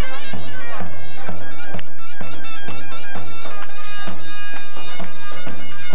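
Kurdish wedding procession music: a shrill, reedy wind melody with quick ornaments, over a drum beat about twice a second.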